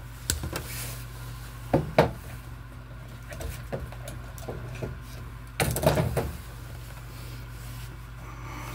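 Lineman's pliers snipping copper ground wire ends at a metal junction box: a few sharp snaps in the first two seconds, then a short burst of knocking and handling of the wires and tool about six seconds in, over a steady low hum.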